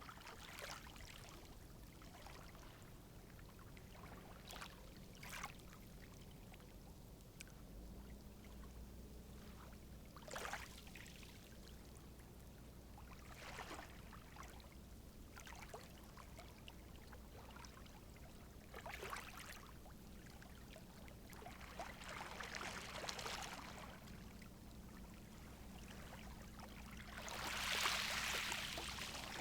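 Small, calm sea waves lapping at the shore, with short irregular splashes every few seconds. A larger wave swells and breaks near the end.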